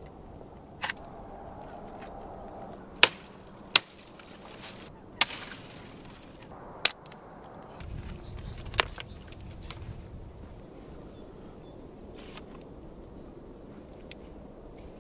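Dry sticks and twigs snapping and cracking as they are broken and gathered for firewood: six sharp cracks over the first nine seconds, with the rustle of brittle branches in between.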